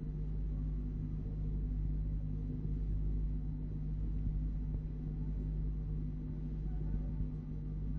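Steady low electrical hum with hiss from an old studio recording, while the Quran reciter is silent between verses.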